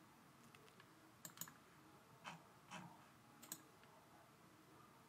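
Near silence broken by a handful of faint, short clicks from working a computer, spread out over the few seconds.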